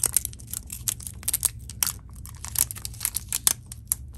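Thin clear plastic wrapper being peeled off the plastic shell of a Sphero Mini robot ball, giving a run of irregular crinkles and crackles.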